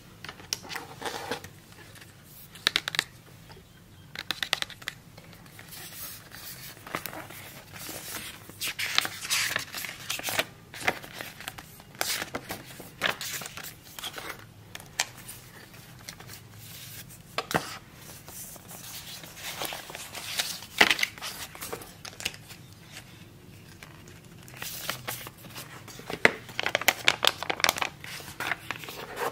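Paper and card packaging from an iPad box being handled: the documentation sleeve slid open and the guide card and Apple stickers pulled out and shuffled, in irregular rustles and crinkles with light taps. The sharpest crackles come about 3 seconds in, around the 21-second mark and in a cluster near the end.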